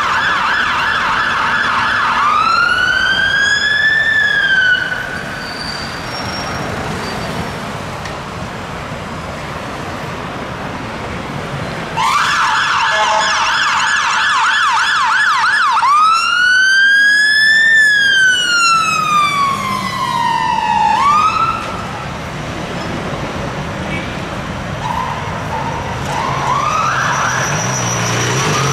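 Fire engine's Whelen Alpha electronic siren, twice switching from a fast yelp to a slow wail that rises and falls, and cutting off about five seconds in and again around twenty-one seconds in. City traffic is heard between the siren passages.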